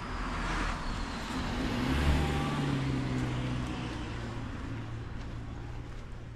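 A car driving past: its tyre and engine noise swells to a peak about two seconds in, then slowly fades, leaving a low engine hum.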